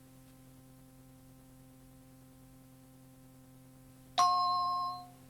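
A single chime strikes about four seconds in and rings out in under a second, over faint tape hum. It is the tape's cueing chime, marking the start of the next track.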